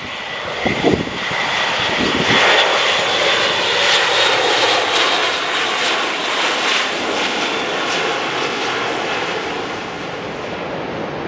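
Airbus A400M's four TP400 turboprop engines and eight-bladed propellers as the transport passes low overhead on landing approach: a loud drone with a steady high whine. It builds to its loudest a few seconds in, then eases slightly near the end as the aircraft reaches the runway.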